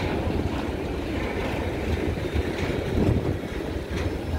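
Freight cars rolling past at a crossing: a steady low rumble of wheels on rail, with a few sharp wheel clacks over the rail joints.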